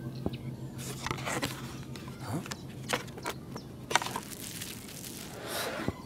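Cardboard boxes being handled and opened: flaps scraping and rustling, boxes knocking as they are set down, and small foam packing beads rustling as hands dig through them. The sounds come as a string of irregular short scrapes and knocks.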